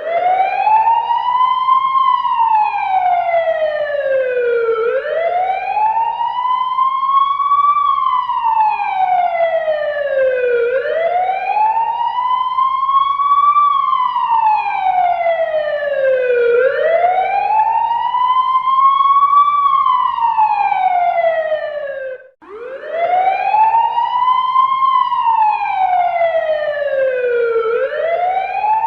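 Fire engine siren wailing: a slow rise and fall in pitch, one cycle about every six seconds. It cuts out briefly about 22 seconds in and starts again with a fresh rise.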